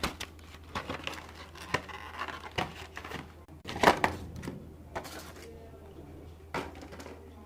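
Packaging being unwrapped by hand: irregular crinkling and tearing, loudest about halfway through, then a few scattered taps.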